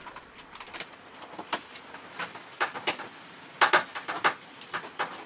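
Irregular light clicks, taps and rustles of electrical cable being handled and fed through conduit along the bare panels of a van's cargo area.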